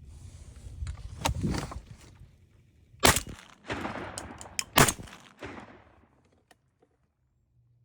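A shotgun fired twice, a little under two seconds apart, each shot sharp with a trailing echo. Softer rustling noise comes before the shots.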